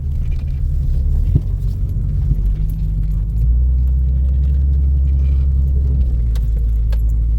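Jeep Grand Cherokee driving off-road: a steady low engine and drivetrain rumble that grows a little louder for a couple of seconds near the middle, with a few light knocks.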